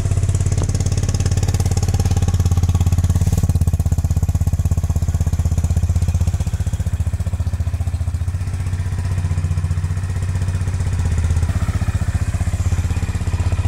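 Honda H'ness CB350's air-cooled single-cylinder engine idling steadily, with an even, pulsing exhaust note.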